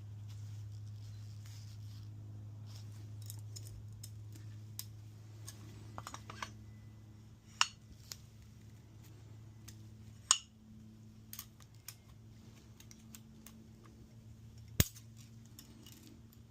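Light metal clicks and three sharp knocks, about 7.5, 10 and 15 seconds in, while a piston fitted with new rings is worked through a ring compressor into a cylinder bore. A steady low hum runs underneath.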